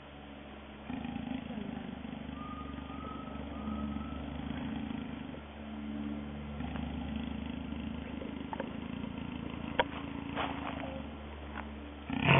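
A jaguar caught in a snare growling low and steadily, with a pulsing growl that briefly drops away about a second in. Just before the end it breaks into a loud snarling roar.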